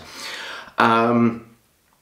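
A man's voice: a breathy exhale, then a held, even-pitched hesitation sound like a drawn-out 'err' for about half a second, followed by a pause.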